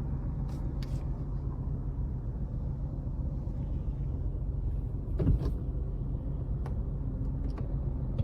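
Tata Tigor iCNG's 1.2-litre three-cylinder engine idling steadily, waiting at rest. A few small clicks and one brief thump about five seconds in are heard over it.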